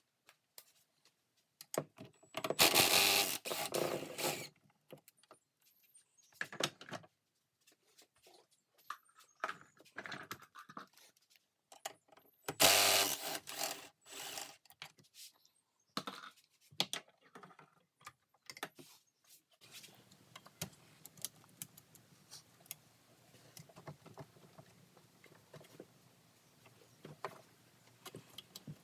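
Engine-mount bolts on a Sea-Doo being undone: two loud bursts of about two seconds each from a power tool, among scattered metallic clinks and clicks of hand tools. A faint low hum comes in about two-thirds of the way through.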